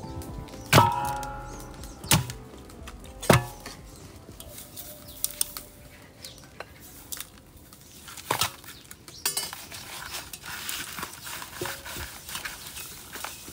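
Raw pork being set down and handled in a large steel basin: three sharp knocks in the first few seconds, the first leaving a brief metallic ring. Lighter knocks and a soft rustle follow as the salted meat is worked over.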